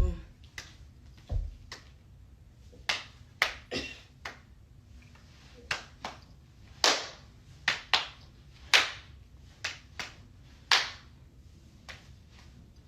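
Body percussion from a step-style dance routine: sharp hand claps and slaps, about fifteen at an uneven pace, with one low stomp about a second and a half in.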